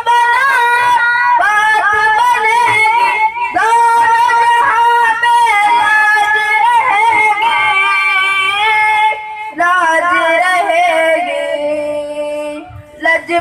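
A boy singing a naat solo into a handheld microphone, in a high voice with long held, wavering notes that slide between pitches. He pauses for breath briefly about halfway through and again near the end.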